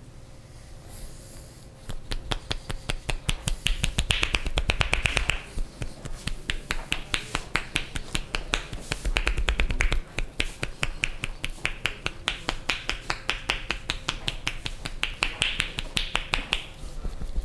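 Percussive massage: hands striking the body in a fast, even run of sharp claps, about six a second, starting about two seconds in.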